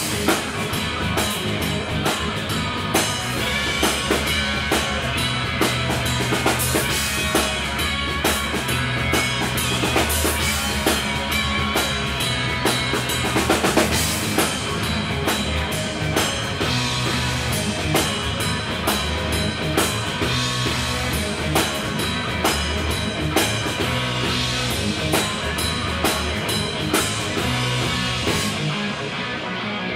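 Live rock band playing: drum kit with bass drum and snare, electric guitars and bass guitar. The cymbals and drums drop out near the end, leaving the guitars.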